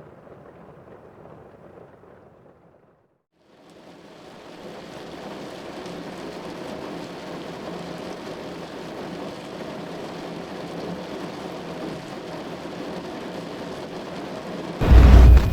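A muffled hiss of rain stops after about three seconds; then steady heavy rain fades in and builds to a constant downpour. Near the end a loud, deep clap of thunder breaks in.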